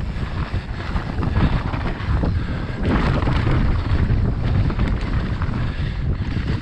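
Wind buffeting a handlebar action camera's microphone as a mountain bike rolls fast over a dirt trail, with tyre noise and a steady scatter of clicks and rattles from the bike over the bumps.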